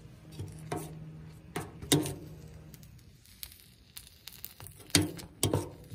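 Metal spoon stirring baked beans in a stainless steel bowl, clinking against the bowl several times with short ringing, the loudest strikes about two seconds in and about five seconds in.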